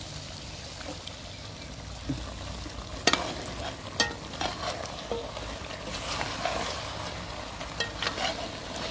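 Geera ribs sizzling in a large metal pot while a spoon stirs and scrapes through them. The spoon strikes the pot sharply twice, about three and four seconds in, then keeps scraping and knocking against it.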